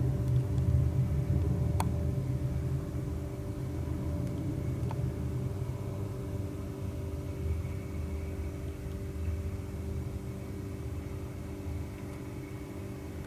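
A Boeing 737-500's CFM56 turbofan engines at takeoff power as the jet rolls for takeoff: a deep rumble with steady engine tones, fading gradually as the aircraft draws away.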